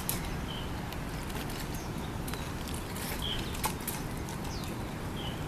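Birds chirping a few short times over a steady low background rumble, with scattered light clicks.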